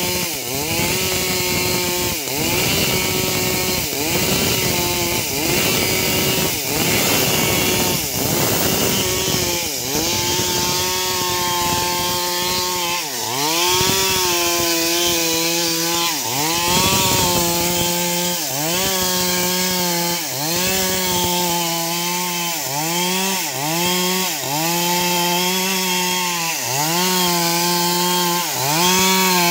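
Stihl MS 382 two-stroke chainsaw running at high revs while ripping lengthwise along a wooden plank. The engine pitch dips and recovers about once a second as the chain bites into the wood under load.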